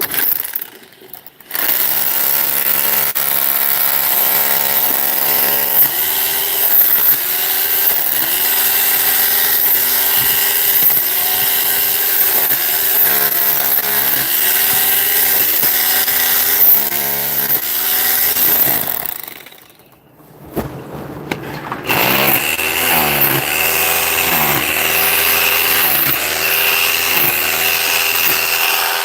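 A power tool running hard in two long spells, with a break of about two seconds partway through. Its pitch sags and recovers again and again, roughly once a second, as it bears into the work.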